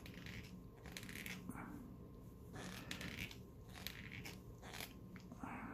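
Faint handling sounds from small typewriter parts being worked by hand: a scatter of light clicks and brief scraping or rubbing noises, several times over.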